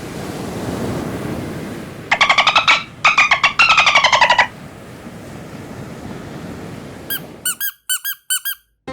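Edited-in cartoon squeak sound effects: two runs of rapid fluttering squeaks about two and three seconds in, over a steady rushing hiss. Near the end comes a string of short, separate, bright blips.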